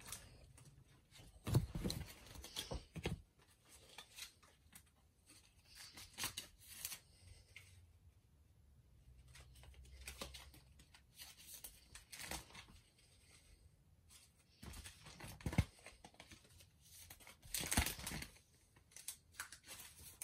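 Match Attax football trading cards being handled and slotted into the plastic pockets of a collector's binder: irregular faint rustling and crinkling with a few sharper clicks.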